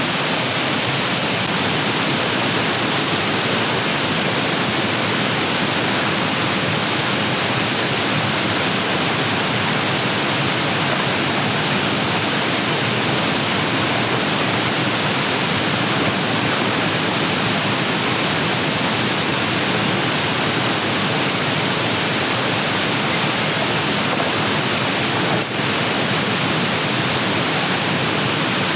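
Steady, even rushing noise with no rhythm or pitch, dipping briefly once near the end.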